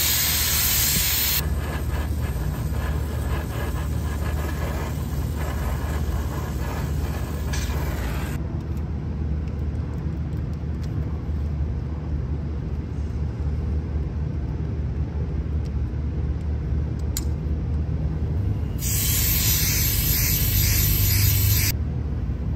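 Nitrogen hissing hard out of a freshly cut copper discharge line, blown through to clear burrs while the tube end is deburred. The strong hiss is heard at the start and again for about three seconds near the end, with a softer ragged hiss for several seconds after the first. In the quieter middle there are a few sharp clicks, as a Hilmor lever swaging tool works the copper tube, over a steady low rumble.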